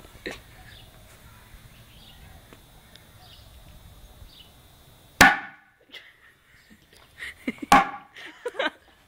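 Fart bomb pouches bursting under an upturned plastic bucket: two sharp pops about two and a half seconds apart, each with a brief ringing tail.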